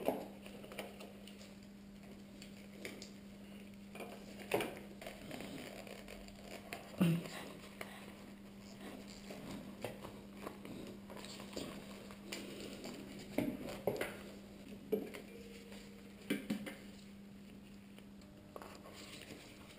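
Soft rustling, clicks and light knocks of a motorcycle wiring harness and its plastic connectors being handled and routed along the frame, over a faint steady hum. A few louder knocks stand out, the loudest about seven seconds in.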